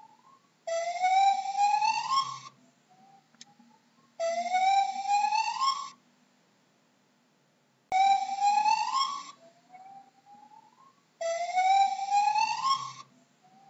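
Gibbon calling: four long rising whoops, about three and a half seconds apart, each led by a softer, shorter rising note.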